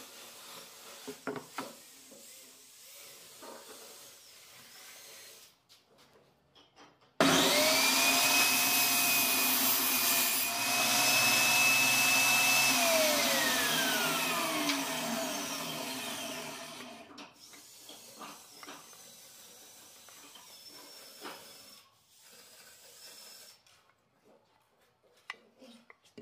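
An electric motor with a fan, such as a shop vacuum or a power saw, starts abruptly about seven seconds in and runs with a steady whine over a loud rush of air. About five seconds later it is switched off and winds down, its whine falling steadily over several seconds until it stops. Faint knocks and clicks of handling come before and after.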